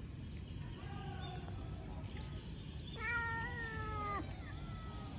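Calico cat meowing: a faint short meow about a second in, then one long, louder meow about three seconds in that drops slightly in pitch as it ends.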